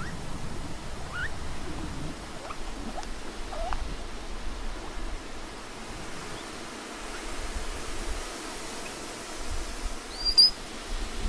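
Patagonian mara giving a few short, faint rising squeaks over a steady background hiss, with one brief, sharper high chirp near the end.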